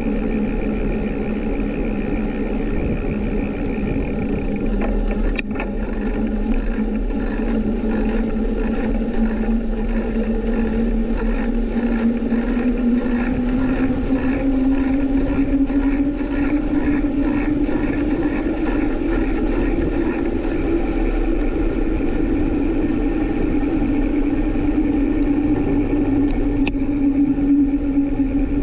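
Steady hum of a moving ride, rising in pitch about halfway through and holding at the higher pitch, with faint regular ticking for a stretch in the middle.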